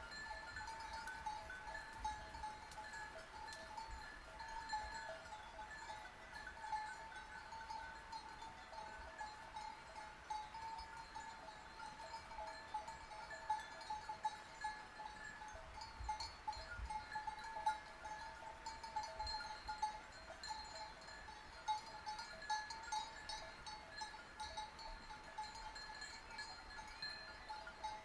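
Sheep bells on a flock jangling continuously, several bell tones ringing and overlapping, with light irregular clinks.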